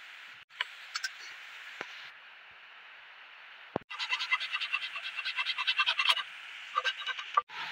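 A small fret saw cutting through a thin dry twig in quick back-and-forth strokes, a rapid rasp that starts about halfway through, stops briefly, then returns for a few strokes near the end. Before it, a steady faint hiss with a few light clicks from twigs being handled.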